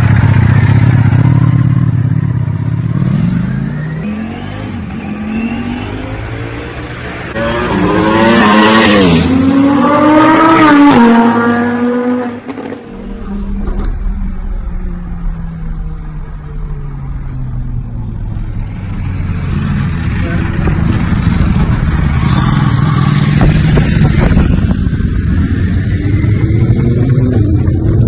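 Ducati sportbike engine accelerating hard, its pitch climbing in steps as it shifts up through the gears about eight to eleven seconds in, then dropping as the throttle closes. Elsewhere it runs at lower revs, getting louder again near the end.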